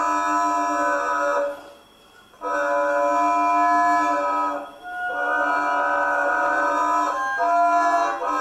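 Long stretched strings of a sound installation, rubbed along their length by hand, giving sustained tones rich in overtones. Three long strokes, with a short silent break about two seconds in and a brief dip near five seconds; the overtones shift during the last stroke.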